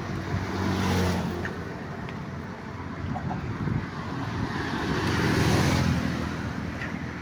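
Road traffic passing on the bridge's multi-lane roadway: tyre and engine noise that swells as a vehicle goes by about a second in, and again, longer, around five to six seconds in.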